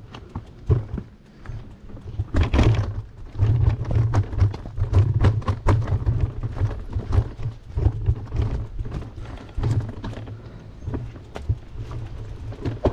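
A bicycle rattling and knocking as it is ridden over rough ground, with irregular sharp knocks over a steady low rumble.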